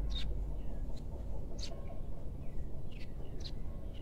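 Birds chirping in the background, a handful of short, separate chirps, over a steady low rumble.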